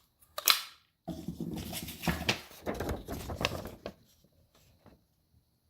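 Plastic clicks and clattering from a DX Cyclone Riser toy belt being handled: one sharp click, then a few seconds of busy clicking and rattling.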